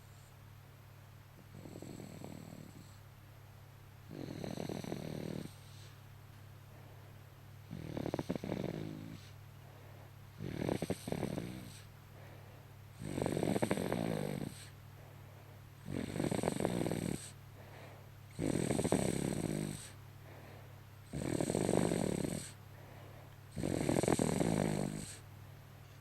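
A sleeping baby snoring in a steady rhythm: about ten snores, one every two and a half seconds or so, each lasting about a second and growing louder in the second half. A steady low hum runs underneath.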